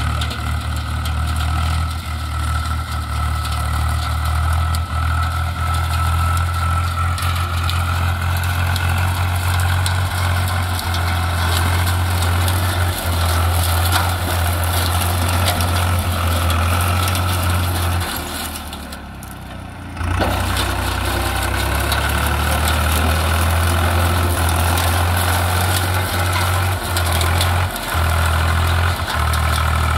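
Swaraj tractor's diesel engine running steadily as the tractor drives through a field of dry crop stalks. The engine sound drops away for about two seconds roughly two-thirds of the way through, then comes back.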